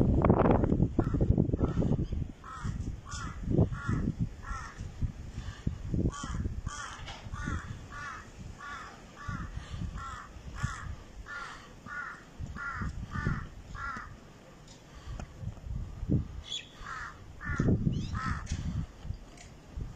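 Crows cawing over and over, about two caws a second in long runs, pausing briefly after the middle and then calling again near the end. Under them is an uneven low rumble, loudest at the start.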